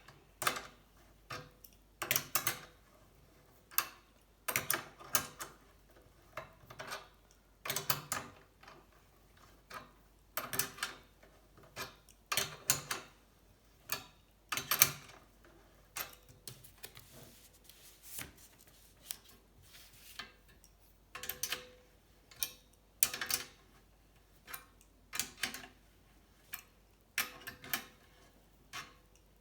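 Repeated sharp metallic clicks and clinks in short clusters every second or two, from hand tools working on a bicycle frame's rear triangle while it is spread wider.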